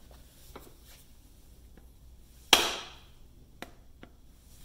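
Rubber mallet striking the end of a new wooden axe handle: two sharp knocks about two seconds apart, each dying away quickly. The blows drive the loosely hung axe head up onto the handle.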